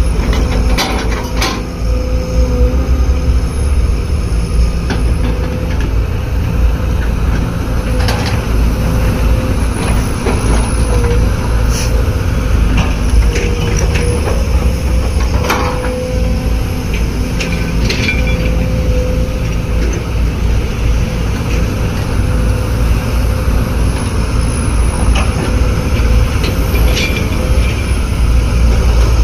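A machine running steadily: a low rumble with a steady whine over it and scattered clicks and knocks.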